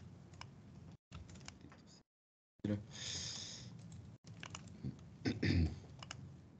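Computer keyboard typing and mouse clicks picked up by a video-call microphone, with the audio cutting out briefly a few times. A short hiss comes about three seconds in and a dull low thump near the end.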